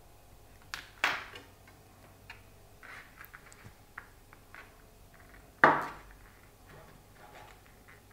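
Knife knocking and tapping on a cutting board while shredding cooked green-plantain peel: scattered light ticks, with two sharp, louder knocks, one about a second in and a stronger one past the middle.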